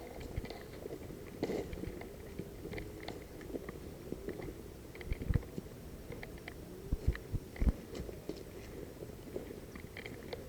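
Footsteps and movement through dry brush: irregular crunching and rustling, with a few dull low thumps about five to eight seconds in.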